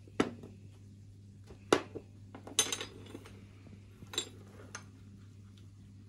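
Utensil clinking against glass dishware: a handful of sharp knocks, with a quick rattle of several near the middle, as a basting brush is dipped into a glass cup of oil and worked over a glass baking dish.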